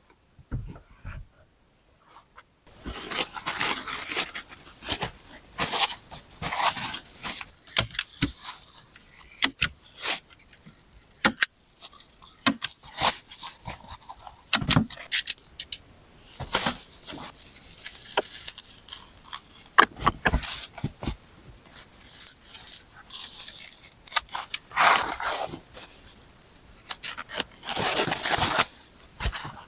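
Close rustling and scraping of material being handled, with many sharp clicks and snaps, starting after a couple of seconds of near quiet.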